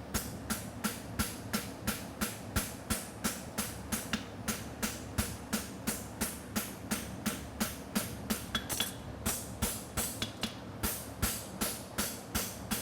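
Farrier's hammer striking a hot steel horseshoe on an anvil in a steady rhythm, about three blows a second, each with a short metallic ring, shaping the edge of a front shoe.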